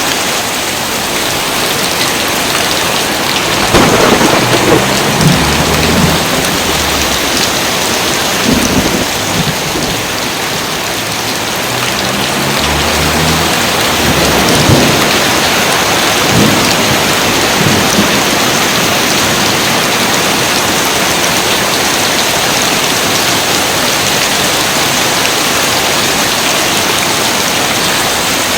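Steady heavy rain, with a spell of thunder: several cracks and low rolling rumbles from a few seconds in until past the middle, then rain alone.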